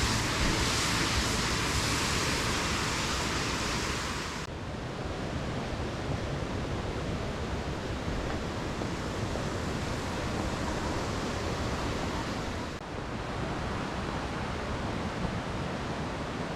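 Steady outdoor rushing noise with no clear tone. Its character changes abruptly twice, once about four seconds in and again near the end, as at cuts between shots.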